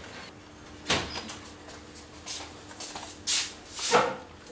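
A few short rustling and scraping sounds of cloth and household things being handled, about five over the few seconds, the loudest near the end, over a faint steady hum.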